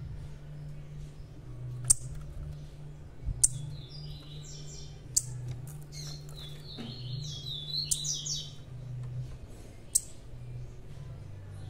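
Small songbirds chirping: single sharp high chirps every couple of seconds and two short warbled phrases, over a steady low hum.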